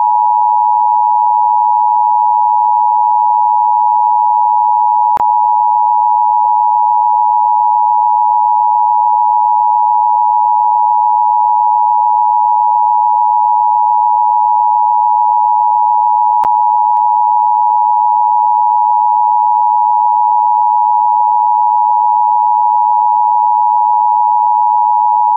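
A loud, steady electronic tone at one unchanging pitch, unbroken throughout, with two faint clicks about five and sixteen seconds in.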